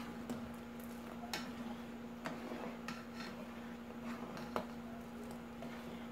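Long metal spoon stirring agar in hot water in an aluminium pot, with light, irregular clinks against the pot's side every second or so. A steady low hum sits underneath.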